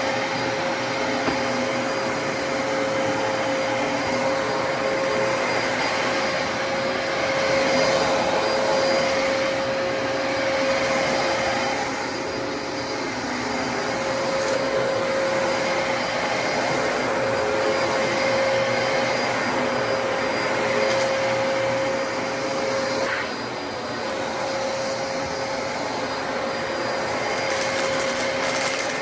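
Dyson DC33 upright bagless vacuum cleaner running steadily, a dense airflow rush with a steady motor whine that briefly drops away about 23 seconds in.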